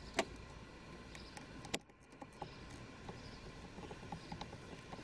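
Faint handling noise from a 36-pin plastic wiring connector and its wires being worked by hand: two sharp clicks about a second and a half apart, then light scattered ticking.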